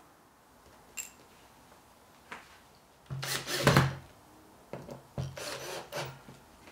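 Ryobi 18 V cordless drill-driver running in two short bursts, about three seconds in and again near the end, driving a screw into a wooden cutting jig. Before it come a couple of light knocks of wood being set in place.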